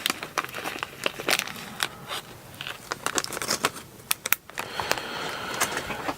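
Plastic packaging crinkling as it is handled, with irregular small clicks.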